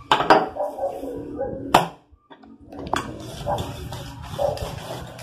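Wooden rolling pin knocking on a granite countertop while bread dough is rolled out: a few sharp knocks, two close together at the start and more near the middle. The sound cuts out briefly about two seconds in.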